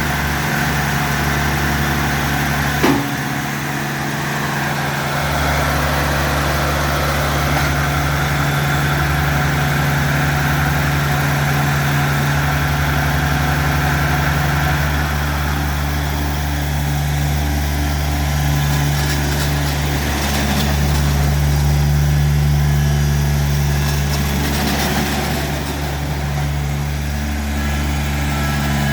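Kubota BX2370 compact tractor's three-cylinder diesel running steadily while the loader and grapple are put through an operations test, swelling slightly under load about two-thirds of the way through. A single sharp click sounds about three seconds in.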